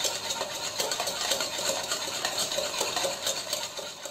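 A spoon rapidly beating instant coffee, sugar and hot water in a bowl by hand: fast, steady clinking and scraping against the bowl as the dalgona coffee mixture is whipped.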